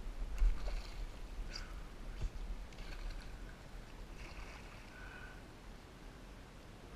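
Kayak paddle strokes, with water splashing off the blade, and a low rumble on the microphone. The sound is loudest about half a second in and fades toward the end.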